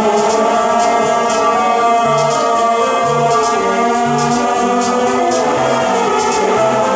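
Live electronic music from a Max/MSP laptop setup: a dense layer of sustained tones over a low note that steps to a new pitch about once a second, with short bright ticks scattered on top.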